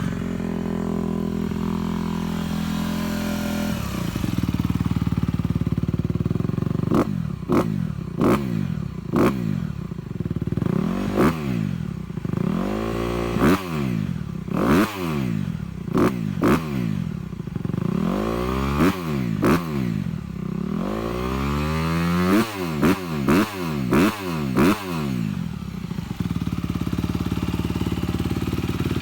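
Dirt bike engine idling, then revved in a long series of quick throttle blips, each rising and falling in pitch, before settling back to a steady idle near the end.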